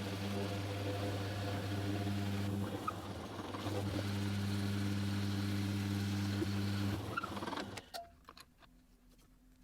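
Electric power tool motor running with a steady hum, then running down and stopping about three-quarters of the way through, as a resin casting is cut and drilled.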